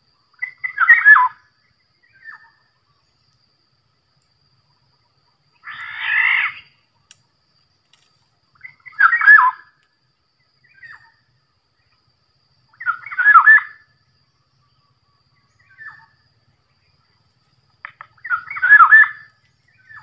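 Black-naped oriole calls: a short whistled phrase repeated about every four seconds, five times in all, with fainter short chirps between.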